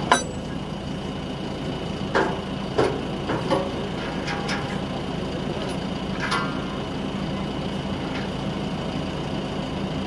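Diesel engine idling steadily, with a handful of sharp metal clanks from the steel lifting chain against the backhoe bucket: one right at the start, a cluster about two to three and a half seconds in, and another about six seconds in.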